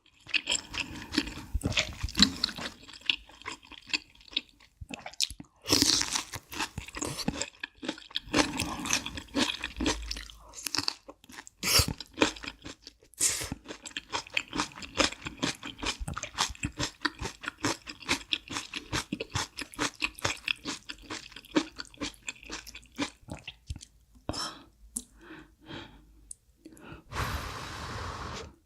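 Close-miked chewing of crunchy food: dense, irregular crunches in quick succession, with a brief breathy hiss near the end.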